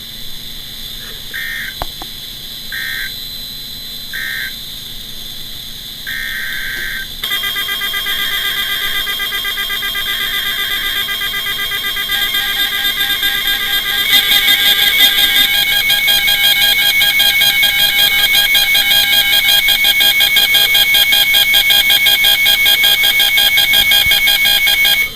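NOAA Weather Radio receiver's alert alarm for a flood warning: a loud, fast-pulsing electronic tone that starts about seven seconds in and gets louder about halfway through. Before it come a few short bursts of high tone, typical of the SAME header data that triggers the alert.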